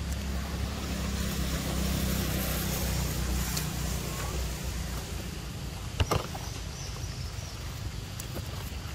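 Steady low outdoor rumble and hiss, louder in the first few seconds, with two sharp taps about six seconds in.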